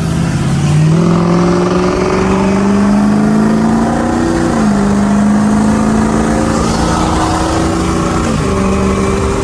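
Ford 6.0L Powerstroke V8 turbo diesel pulling under acceleration through a newly fitted cold air intake, its pitch climbing steadily and then dropping sharply about halfway through and again near the end as the transmission shifts up.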